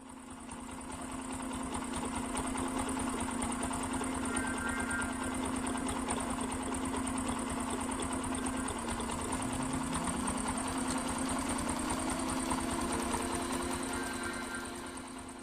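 A small machine running with a steady, buzzing hum. About nine seconds in, a second tone rises in pitch over a couple of seconds and then holds steady alongside it.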